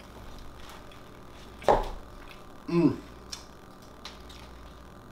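A man chewing a mouthful of soft cookie with faint mouth clicks. He makes two short hums of enjoyment about two and three seconds in, the second falling in pitch.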